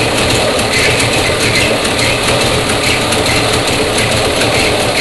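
1966 Mustang's 289 V8 engine running with a loud, steady squeal from the alternator, not the fan belt.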